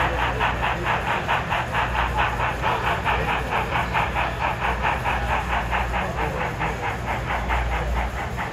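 HO scale model of Strasburg Rail Road No. 90 steam locomotive running, with a steady chuff about four times a second over a low steady hum.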